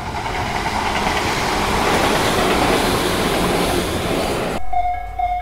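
Tobu Tojo Line electric train passing, its running noise swelling to a peak and fading. A little before the end it gives way abruptly to a level-crossing warning bell ringing at about two strikes a second.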